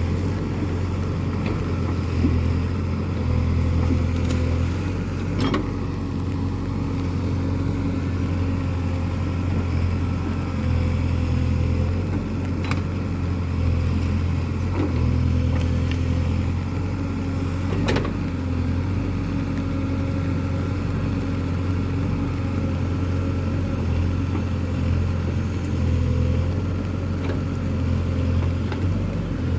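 Diesel engine of a Case 851EX backhoe loader running steadily at an even speed. A few sharp knocks are heard over it, the clearest about eighteen seconds in.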